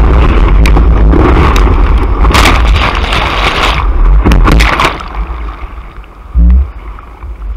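Whitewater rushing and splashing over a surfboard-mounted action camera as the surfer rides the broken wave and falls. The rush dies down about five seconds in to quieter sloshing, with a single low thump soon after.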